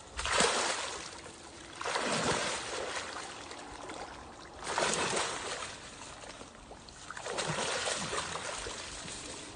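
Crocodile thrashing in shallow stream water while hauled on a rope, the water splashing and churning in four loud surges about two seconds apart over the steady rush of the stream.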